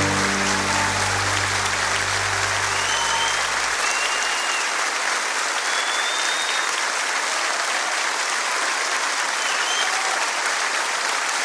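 A large theatre audience applauding, with a few short whistles. The song's last low chord rings on under the clapping and stops about four seconds in.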